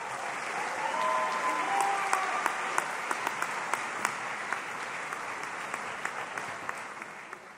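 Audience applauding in a large hall. A few voices cheer briefly about a second in, and the clapping fades out near the end.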